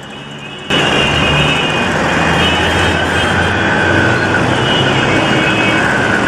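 Road traffic noise, vehicle engines running with a steady low hum, cutting in suddenly and loudly less than a second in.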